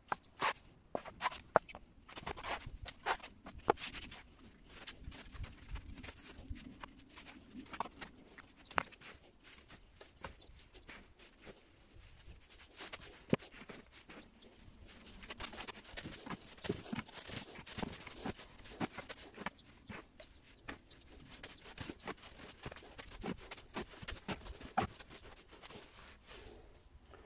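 Dry wood shavings rustling and crackling as they are poured from a plastic dustpan into a metal bucket and packed down by a gloved hand around a plastic pipe. The sound is an irregular stream of small crackles and scrapes, busiest near the start and again in the second half.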